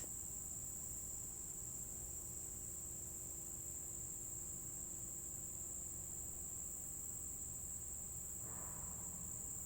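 Insects chirring in one steady, high-pitched, unbroken drone, over a faint low background rumble.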